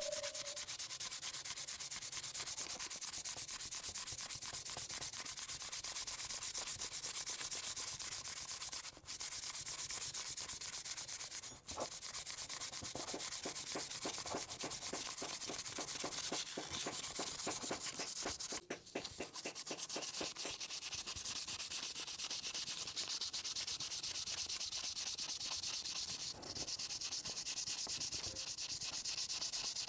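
Sandpaper rubbed by hand over a new wooden sickle handle: a steady scratchy hiss of quick back-and-forth strokes, broken by three or four short pauses.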